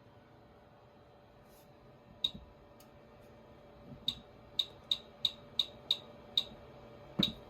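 A run of sharp, ringing clicks, the first alone about two seconds in, then seven or so in quick succession from about four seconds in, ending with a dull thump near the end, over a faint steady hum.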